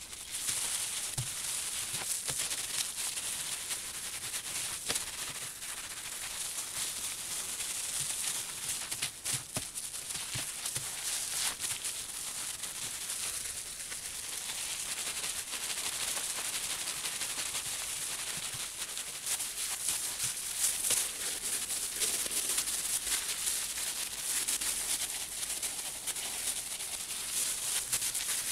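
Gloved hands rubbing and kneading a wet, soapy wool felt slipper on bubble wrap while fulling it: a continuous crinkly rustle of plastic, with small crackles and wet squishes.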